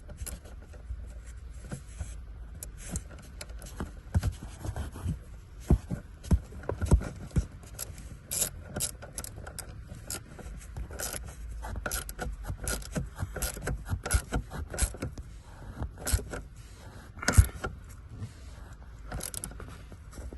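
Irregular metallic clinks, knocks and scrapes of hand tools and parts being handled around a car battery cable terminal, over a steady low hum.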